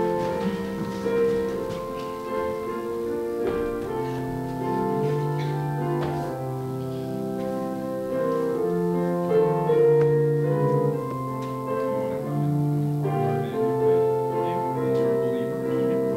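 Instrumental keyboard music: held chords over a slowly moving bass line, with no voice.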